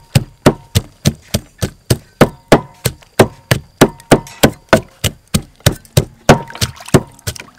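Wooden pestle pounding garlic in a large wooden mortar: dull wooden thuds in a steady rhythm of about three strokes a second.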